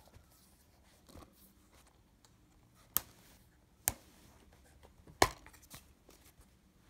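A plastic DVD keep case being handled and opened: a few sharp plastic clicks about three and four seconds in and a louder snap about five seconds in, with faint handling noise between them.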